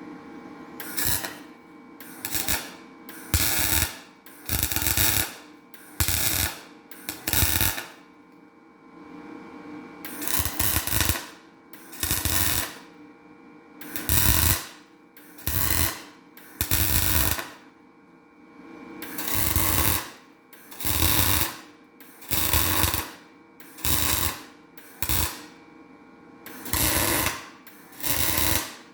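MIG welder laying short tack welds onto the valve seats of a Chrysler 4.7 cylinder head: about twenty short bursts of arc, each under two seconds, with brief pauses between them and a steady hum underneath. The blobs of weld are built up so the loose seats can be knocked out.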